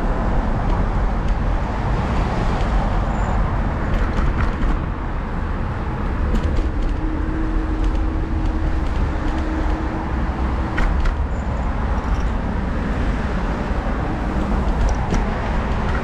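Steady road traffic on a city street, cars driving past, with a heavy low rumble throughout. A steady hum rises out of it for about three seconds in the middle, and a few faint clicks come and go.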